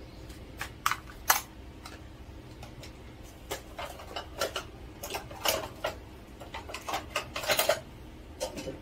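Kitchen utensils and dishes clinking and knocking at irregular intervals, with busier runs of clinks around the middle and near the end.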